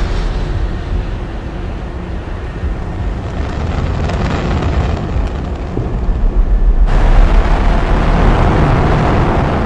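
Jet engine noise for a high-flying jet: a deep, steady rush that turns louder and brighter about seven seconds in, as the engine's afterburner glow comes into view.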